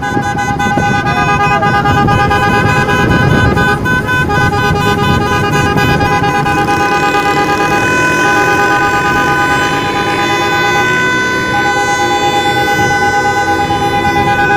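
Several car horns held down together in a driving convoy, sounding steady tones at different pitches. One of the horns lifts off briefly about four, eight and eleven seconds in. Engine and road noise run beneath.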